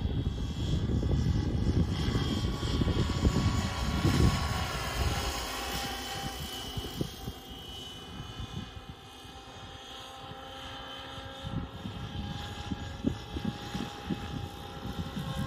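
Radio-controlled scale Bell 222 helicopter, an electric 700-size Align T-Rex with a scale sound module, flying. Its rotor makes a fluttering rumble under a steady whine of several tones. The sound fades about halfway through as it moves off, then grows again near the end.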